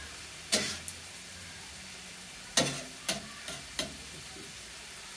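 Chopped chicken and onions sizzling steadily on a hot steel griddle, with a metal spatula scraping and clacking against the griddle plate about six times: once about half a second in, then in a quick run of four in the middle.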